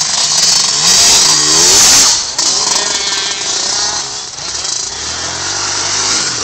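Two-stroke KTM motocross bike engine revving hard, its pitch rising and falling, loudest between about one and two seconds in.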